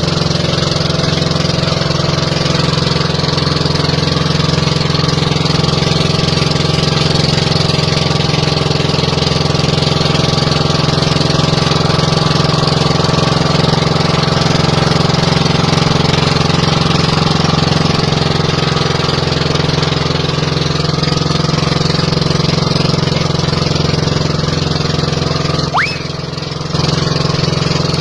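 Boat engine running steadily at a constant speed, with a short dip in level about two seconds before the end.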